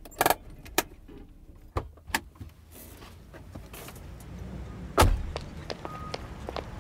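Car sound effects in a recorded dialogue: a few clicks and knocks over a low rumble, then a loud car door slam about five seconds in.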